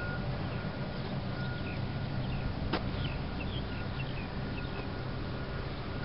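Open-air ambience: a steady noisy background with a low rumble, and a run of faint, short, high bird chirps through the middle. A single sharp click partway through.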